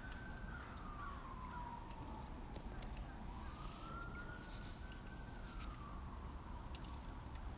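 A siren wailing in slow rises and falls, about one full cycle every four and a half seconds, over a low steady rumble.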